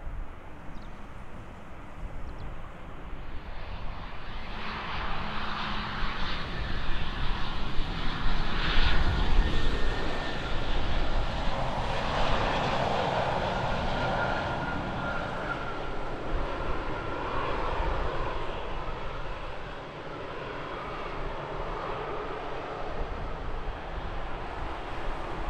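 Engines of a passing passenger aircraft, growing louder over several seconds to a peak and then holding as a steady, lower engine noise, with a faint whine on top.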